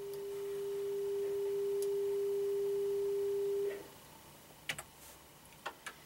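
A steady electronic pure tone at one pitch, swelling louder and then cutting off abruptly a little under four seconds in, followed by a few faint clicks.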